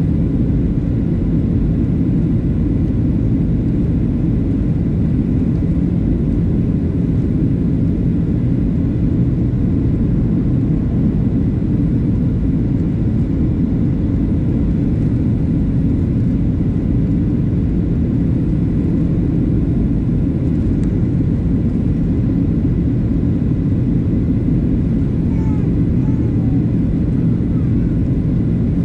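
Steady low roar inside the passenger cabin of a Boeing 737-700 in flight: engine and airflow noise, unchanging in level.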